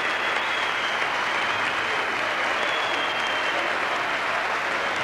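A large audience applauding steadily, a dense even clapping.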